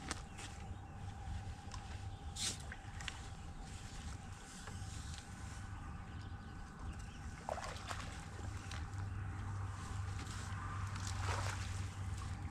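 Water sloshing and splashing at the lake edge as a hooked fish is drawn into a landing net and lifted out. There is a sharp splash or knock about two and a half seconds in and brief swishes around the middle and near the end, over a steady low hum.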